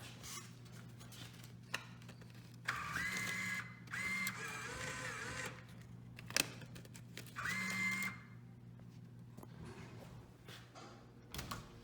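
Drink vending machine's bill acceptor whirring in short motorised runs as it draws in the money, with a few sharp clicks in between.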